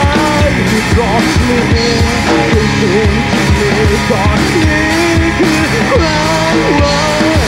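A rock band playing live: a man singing over electric guitar, bass and drums keeping a steady beat.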